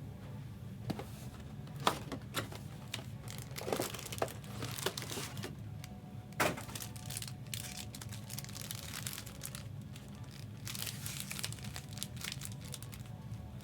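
Plastic trading-card packaging crinkling and tearing, with scattered sharp crackles, as a sealed box or pack is opened.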